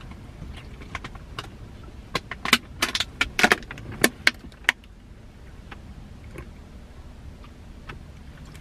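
Thin plastic water bottle crackling as it is handled and its screw cap twisted open: a run of sharp clicks and crinkles, densest in the first half, then quiet.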